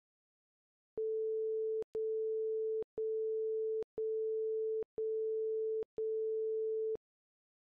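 Interval timer's electronic countdown beeps: six identical steady tones, one per second, each lasting nearly a second with a short gap between, counting down the final seconds to zero.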